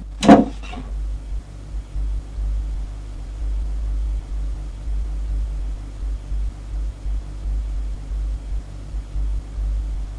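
Low, steady background rumble with a faint hum above it, wavering slightly in level, after a short sharp sound right at the start.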